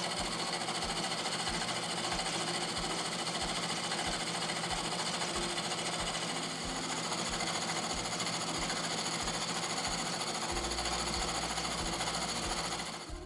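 Milling machine running, its end mill cutting an angled edge on a metal plate clamped in the vise: a steady machining noise with high, steady whining tones throughout.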